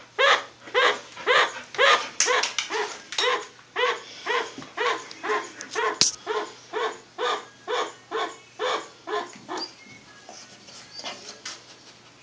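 Chinchilla giving a long run of short, evenly spaced barking calls, about two a second, that grow fainter and die away near the end. The owner takes it for an alarm call, probably a warning about the dog.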